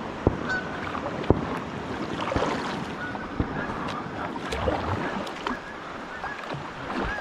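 River water rippling and lapping against a kayak's hull at the waterline as it drifts through a shallow riffle, with a few sharp knocks and clicks against the boat.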